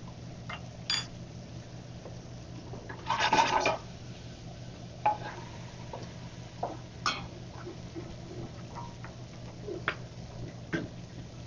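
Pots, pans and utensils clattering on a stovetop and counter: scattered clinks and knocks, with one louder metallic clatter about three seconds in, over a steady low hum.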